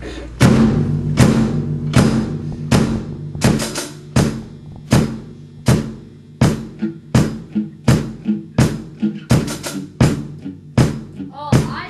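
Amateur rock band playing: a drum kit starts about half a second in and keeps a beat of bass drum and snare hits that grows busier in the second half, with an electric guitar ringing low and steady underneath.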